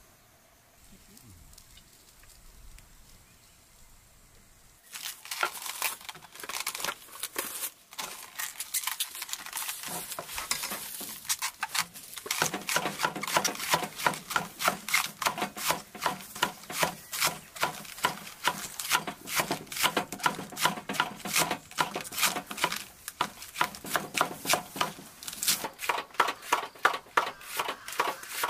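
Kitchen knife shredding cabbage on a wooden cutting board: after a few seconds of quiet, rapid, even chopping strokes start about five seconds in and grow louder about halfway through.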